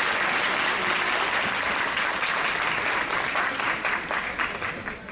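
Audience applauding, the dense clapping thinning into separate claps in the second half and dying away near the end.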